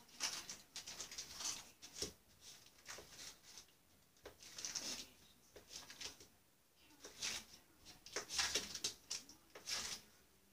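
Foil wrapper of a block of cream cheese crinkling and rustling in short, irregular bursts as it is handled and unwrapped.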